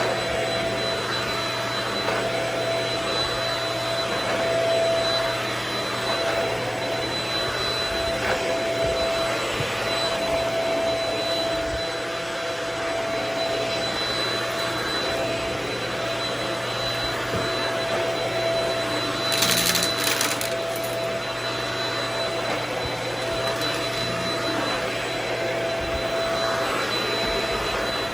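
Upright vacuum cleaner running steadily on a rug, a constant whooshing motor with a steady whine. About two-thirds of the way through comes a short burst of higher hiss.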